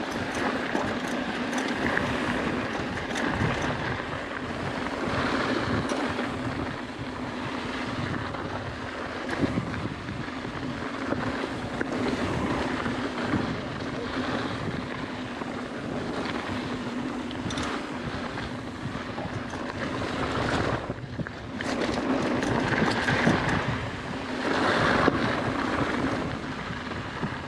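Mountain bike riding a dirt singletrack: continuous tyre and trail noise with the bike rattling over the ground, mixed with wind buffeting the action-camera microphone. The noise rises and falls with the terrain and briefly drops about three-quarters of the way through.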